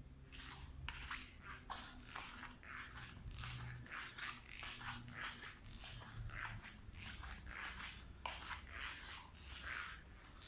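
Soft scuffing footsteps of a person walking on a hard floor, about two a second.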